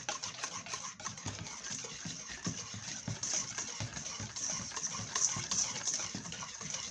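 Wire whisk beating a thick mayonnaise coleslaw dressing in a stainless steel bowl: a rapid, rhythmic run of clicks and scrapes as the wires strike the metal, several strokes a second.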